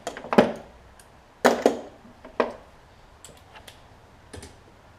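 Sharp knocks and clatters of mower engine parts and tools being handled while the recoil starter's bolts are taken off. There are about five loud knocks in the first two and a half seconds, then a few lighter taps.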